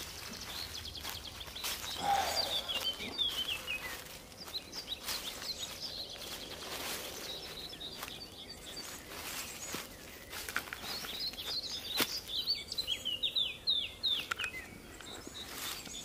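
Footsteps on dry fallen leaves in a forest, with small birds giving short, falling chirps a few seconds in and again near the end. A single sharp crack stands out about twelve seconds in.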